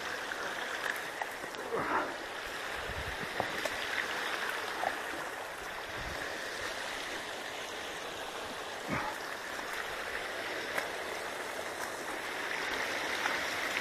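Water running steadily through a beaver dam of sticks and mud, with a few light clicks now and then.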